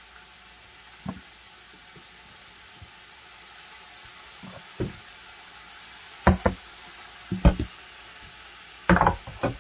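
Chicken deep-frying in vegetable oil: a steady sizzle with sharp pops of spitting oil every second or two, the loudest near the end.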